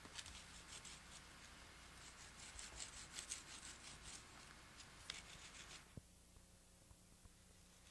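Wooden bow drill spindle rubbing in a fireboard: a faint dry rasping of quick back-and-forth strokes that stops about six seconds in.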